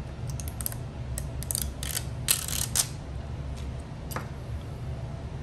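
Sharp clicks and short scrapes of small repair tools on a smartphone: a quick run of them in the first three seconds, the loudest near the middle, and one more click about four seconds in, over a steady low hum.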